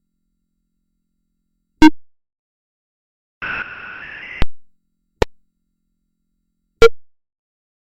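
Random synthesized electronic sounds on silence: a sharp click about two seconds in, then a buzzy tone lasting about a second that ends in a click, then two more sharp clicks.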